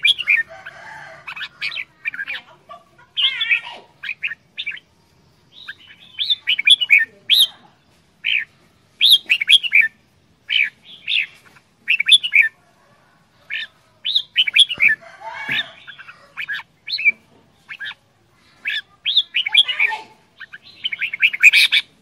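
Red-whiskered bulbul singing: short, quick phrases of chirping notes, repeated again and again with brief pauses between them.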